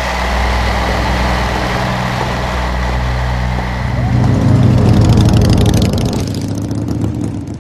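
Warbird piston engine running, heard from inside the cockpit over heavy rushing airflow. About four seconds in the engine grows louder and the wind noise fades away.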